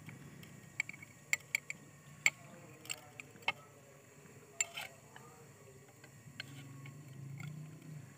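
A steel spoon clinking against a small glass bowl: about ten light, sharp clinks at irregular intervals, most of them in the first five seconds.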